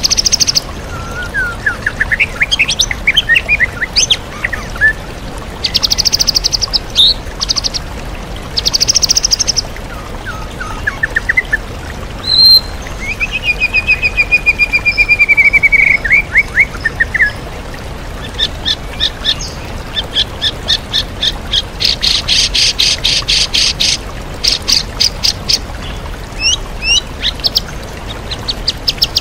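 White-rumped shama singing a varied, loud song of rising whistles, buzzy trills, a long slurred note and fast ticking rattles, over the steady hiss of a waterfall.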